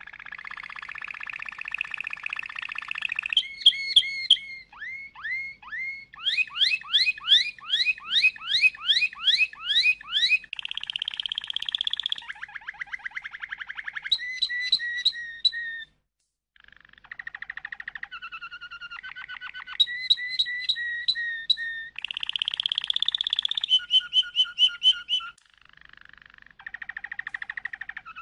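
Domestic canary singing a long, varied song of buzzy rolls, fast trills and a run of sharp rising notes at about two and a half a second, with a short break about halfway.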